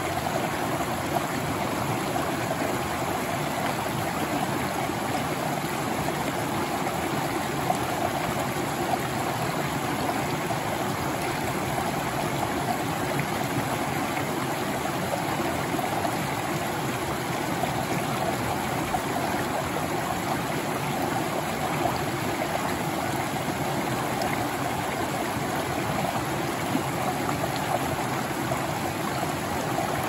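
A shallow stream spilling over rocks in a small cascade: a steady, even rush and splash of water.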